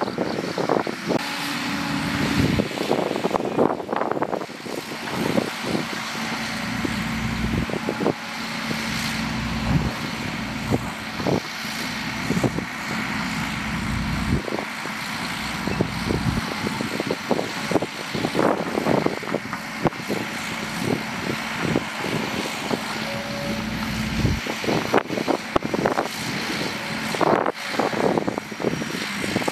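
Heavy diesel engines of a dump truck and a crawler bulldozer running, with frequent clanks and knocks over a steady rumble, as the truck's tipper bed is hoisted to dump soil.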